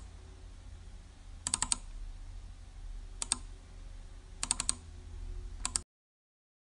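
Computer keyboard typing: five short runs of a few keystrokes each, spaced about a second apart, over a faint low hum. The sound stops abruptly near the end.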